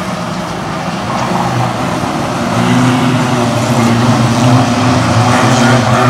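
Engines of several banger racing cars running hard as the pack laps the oval, growing louder from about a second in as the cars come round the bend.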